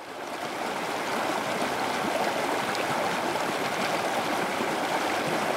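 Fast-flowing river running over shallow rapids: a steady, even rush of water that fades in over the first second.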